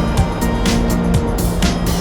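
Background music with a steady beat: drum hits about twice a second over held notes.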